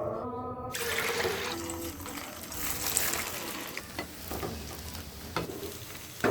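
Chicken kebab pieces frying in hot oil: a dense, steady sizzle with a few sharp clicks, starting just under a second in after a short musical phrase.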